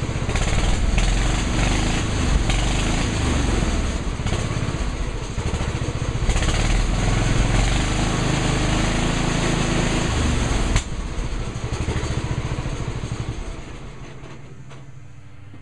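Engine of a 1968 Sears 10 XL riding tractor mower running close by, its level rising and falling. About eleven seconds in it drops suddenly, then fades away near the end.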